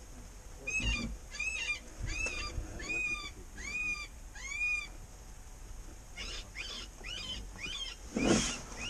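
Predator call playing a distress sound: six evenly spaced, high, arching cries, then a quicker run of shorter cries, with a loud bump near the end.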